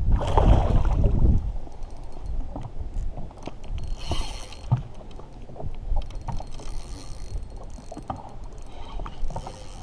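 Wind buffeting the microphone, loudest in a gust during the first second, over water lapping against a fishing boat. Scattered light clicks run throughout as a spinning reel is cranked to bring in a hooked fish.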